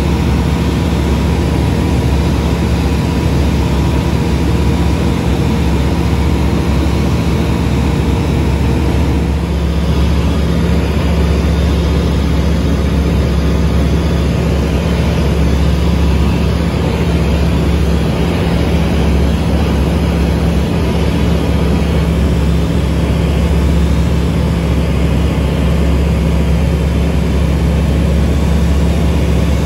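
Single-engine light aircraft, an Aquila 210 with its four-cylinder Rotax 912 S engine and propeller, running steadily at cruise as heard inside the cabin: a constant loud drone with a deep hum.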